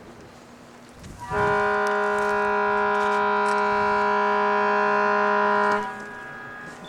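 One long, steady horn blast at a single pitch, lasting about four and a half seconds and cutting off sharply.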